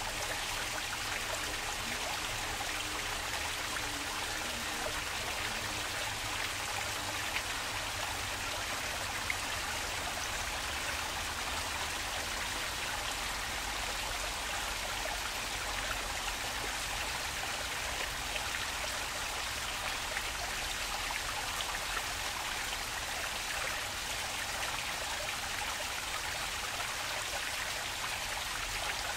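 Water flowing steadily in a stream, a continuous even rush.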